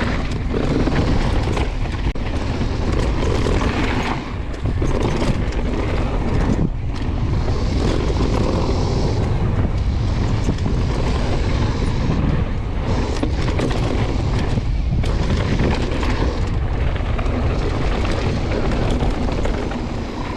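Wind rushing over the microphone and tyres rumbling on a dirt trail as a downhill mountain bike is ridden fast, with frequent knocks and rattles from the bike over bumps.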